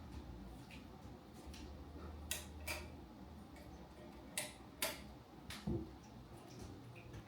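Light handling sounds: a scattering of sharp clicks and taps of small hard objects, about five louder ones in pairs between two and six seconds in, over a faint low hum.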